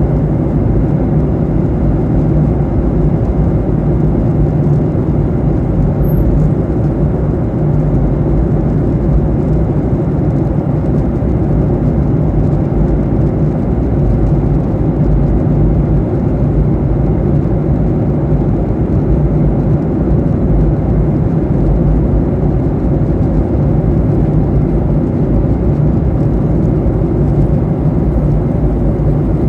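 Steady cabin noise inside a Boeing 737-800 in flight: a constant low rumble of its CFM56 jet engines and the rushing air.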